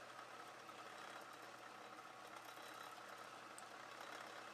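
Faint, steady running of an Atlas 10-inch turret lathe, its spindle turning while a small drill in the turret bores into a 3C collet blank.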